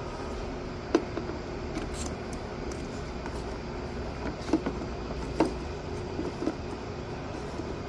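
A steady mechanical hum with a few sharp clicks and light knocks: one about a second in, and a small cluster around the middle.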